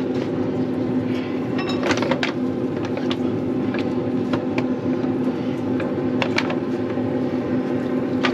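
Steady hum of a running Yoder YS640 pellet grill's fan, with light scattered taps as food is set down on the metal grill grates.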